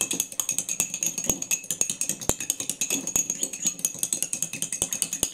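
Metal spoon briskly stirring a vinaigrette-style mustard dressing in a small glass bowl, clinking against the glass in a rapid, even rhythm of several clicks a second over a faint high ring.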